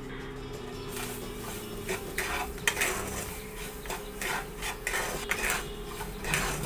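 Wooden spatula stirring and scraping roasted semolina and grated fresh coconut around a nonstick kadai, in quick repeated strokes of about two a second that start about a second in.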